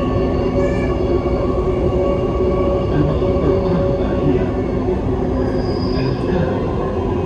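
Dubai Metro train running, heard from inside the car: steady rolling rumble with a hum of motor tones, and a brief high wheel squeal about six seconds in.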